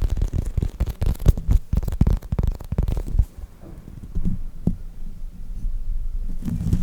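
Soft squishy foam toys squeezed and handled close to the microphone: about three seconds of rapid crackling and tapping, then slower, softer squishes.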